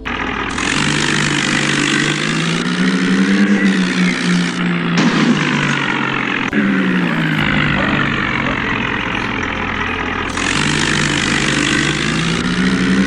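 Tractor engine running, its pitch rising and falling in slow swells as it revs, with a loud hiss over it.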